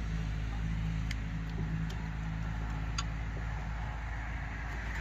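Steady low mechanical hum, with three light clicks of metal parts as a chainsaw's bar and chain are handled and fitted.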